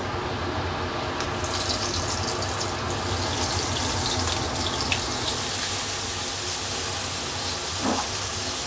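Cut crab pieces frying in hot oil in a wok: a steady sizzle with fine crackles that starts about a second in, over a low steady hum.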